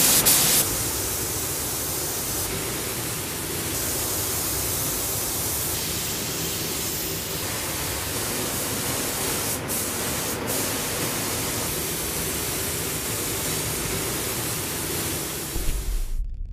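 SATA gravity-feed air spray gun spraying paint, a steady hiss of compressed air and atomised paint. It starts abruptly and loudest in the first half-second, breaks briefly twice about ten seconds in, and cuts off suddenly just before the end.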